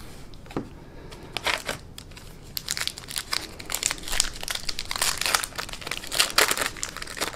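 Plastic wrapper of a baseball card pack being crinkled and torn open by hand: a run of irregular crackles, busiest in the second half.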